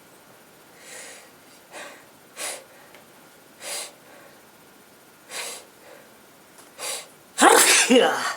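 A run of six short, sharp breaths, then one loud sneeze with the voice in it near the end, lasting about a second.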